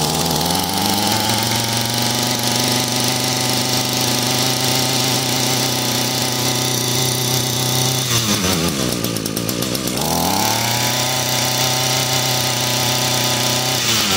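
Echo SRM210 string trimmer's two-stroke engine running just after a cold start on a freshly installed carburetor and fuel lines, choke off. Its speed settles upward in the first couple of seconds, sags about 8 seconds in, picks back up about two seconds later, and drops again at the end.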